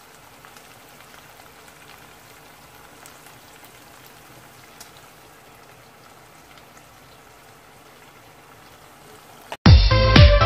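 Ground pork with garlic, onion and tomato frying gently in oil in a pot: a faint, even sizzle with scattered small pops. About nine and a half seconds in it cuts off, and loud electronic music with a thumping beat starts.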